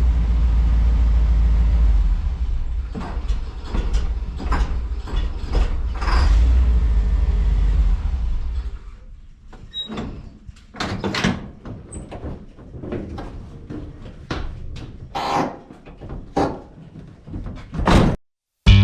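Low, steady vehicle engine rumble for about eight seconds, which then drops away. A string of irregular knocks and clunks follows.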